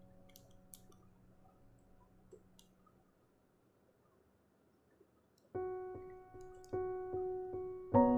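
A few faint clicks, then a short near-silent gap. About halfway through, soft background piano music begins: single struck notes that ring and fade, a little over a second apart, thickening into chords near the end.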